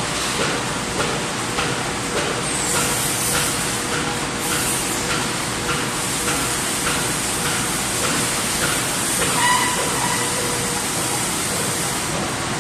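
Industrial printing press running in production, a steady mechanical din with a regular knock about every 0.6 seconds and a high hiss that comes up a couple of seconds in. A brief beeping tone sounds about ten seconds in.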